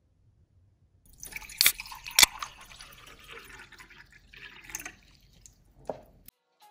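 Water being poured in a thin stream into a cup and splashing as it fills. It starts about a second in with two sharp splashes, the loudest sounds here, and stops a little after five seconds.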